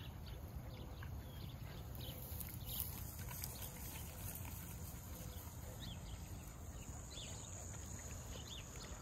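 A pig eating feed from a pan, with short, irregular chewing and crunching sounds.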